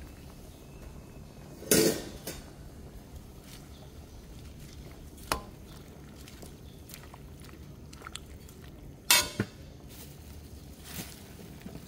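Metal slotted skimmer knocking and scraping against a stainless steel pan while stirring blanched greens, with a few sharp clinks, the loudest about two seconds in and about nine seconds in.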